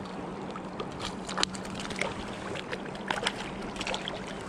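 River water lapping and splashing against the hull of a small boat, with many small irregular ticks and drips.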